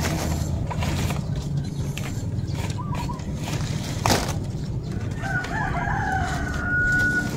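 A rooster crows once about five seconds in, one long call ending on a held high note. Under it, nipa palm leaves rustle as they are handled, with one sharp knock about four seconds in.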